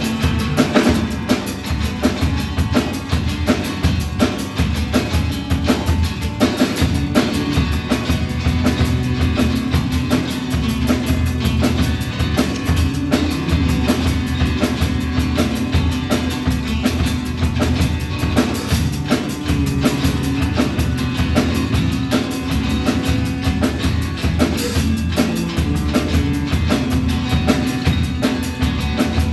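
Live rock band playing, with a drum kit keeping a steady, driving beat of kick, snare and rimshots under bass and guitar.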